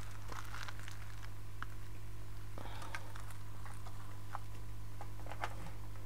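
A steady low electrical hum runs under scattered small clicks and light rustling from handling at a repair bench.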